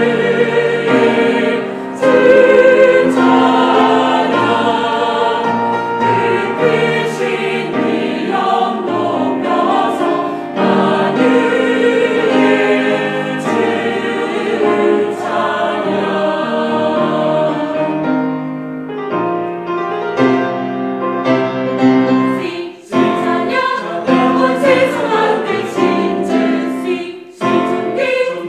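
Mixed choir of men and women singing a Korean hymn in harmony, accompanied by piano, cello and violins. The phrases are sustained, with two brief breaks between them near the end.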